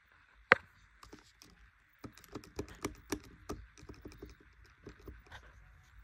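Handling noise: one sharp click about half a second in, then from about two seconds in a run of irregular taps and knocks, over a steady faint hiss.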